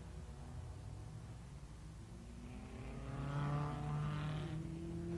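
1950s Grand Prix racing car engine at high revs: faint at first, then rising in pitch and growing louder as it nears, before holding a steady note near the end.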